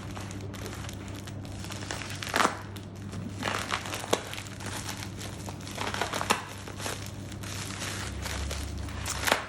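Packaging being torn open and crumpled by hand: irregular crinkling and tearing, with sharper rips about two, four and six seconds in and again near the end.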